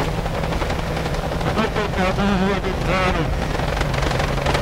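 Rally car engine running hard, heard from inside the cabin, over steady road noise from the dirt stage; the revs rise briefly about two seconds in and fall back lower near the end.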